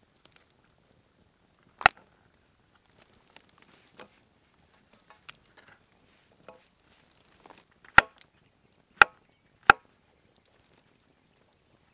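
Wood being chopped in sharp, separate strikes. One loud chop about two seconds in, lighter taps and knocks after it, then three loud chops in quick succession near the end.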